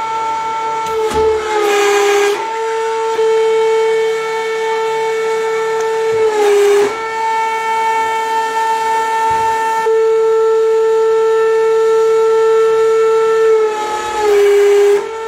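Hydraulic press's pump running with a steady high whine that sags in pitch as the ram loads up. This happens three times, near the start, about halfway and near the end, each time with a short burst of crunching and crackling from the object being crushed.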